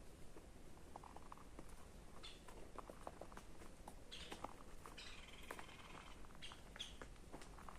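Faint short bird chirps and a brief warbling call about five seconds in, over soft scattered clicks and rustles.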